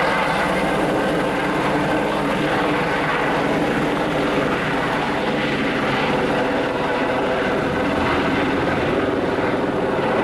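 Airbus H130 helicopter with a single engine and a Fenestron ducted tail fan, lifting off into a low hover. Its engine and rotors run steadily, a whine of several held tones over the rotor noise.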